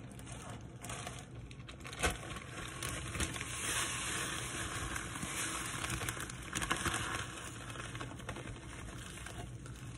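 Plastic zip-top bag crinkling as crushed Oreo cookies are poured and shaken out of it into a glass bowl, a continuous rustle that is loudest in the middle. A single knock about two seconds in.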